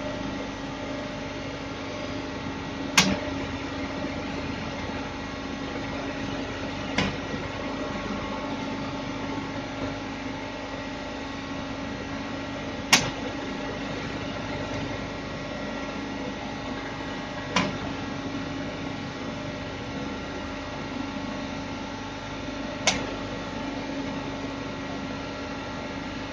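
Steady electrical hum from the control panel of a stress-relieving heat-treatment machine, with a sharp click every four to six seconds as the keys of its digital temperature controller are pressed.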